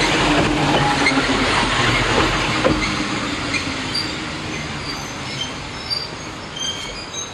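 Eizan Electric Railway electric railcar running close by on its rails, a loud wheel-and-rail rumble that fades after about three seconds. Short high-pitched wheel squeals sound through the quieter part.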